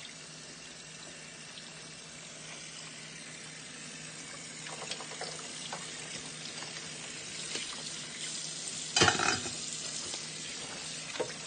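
Tap water running into a stainless steel sink and splashing over crabs as they are rinsed and scrubbed by hand, with occasional light clicks of shell. About nine seconds in there is a brief, much louder clatter or splash.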